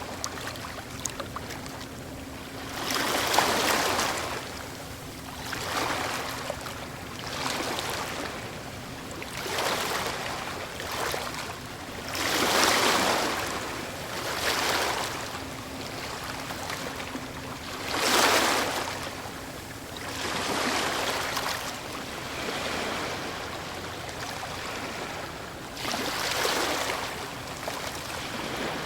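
Medium waves breaking on a stony shore, with water rushing and trickling back through small stones as each wave pulls away. The swells come every couple of seconds, with a few noticeably louder breaks among them. A faint steady hum of a very distant boat runs underneath at times.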